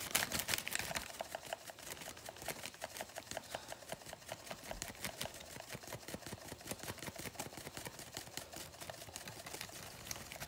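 Dried parsley shaken from a spice jar into a zip-top plastic bag of cornmeal and flour: a quick, steady run of light ticks and taps, a little louder in the first second.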